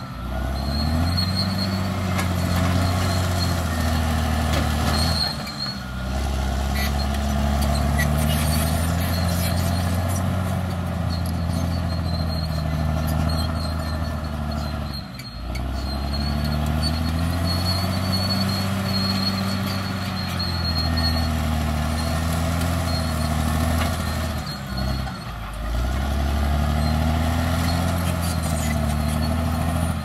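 Crawler bulldozer's diesel engine working under load as the dozer pushes soil, its pitch rising and falling with the work. The sound dips briefly a few times.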